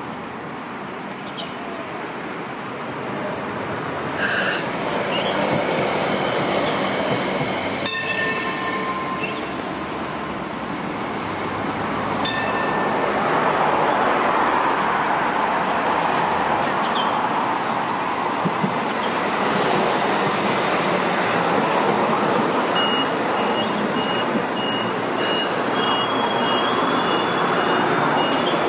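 Hong Kong Light Rail tram running at the stop, its noise growing louder from about halfway through. Near the end come a quick run of high beeps and a slowly rising whine as a tram passes the platform.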